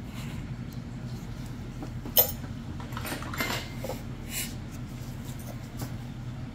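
A few small metallic clicks from steel nail nippers being handled, the sharpest about two seconds in, over a steady low hum.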